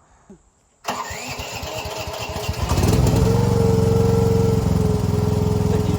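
Gasoline engine of a mini excavator coming in abruptly after a brief near-silent gap and running with rapid even firing pulses, growing louder about three seconds in, when a steady whine joins it.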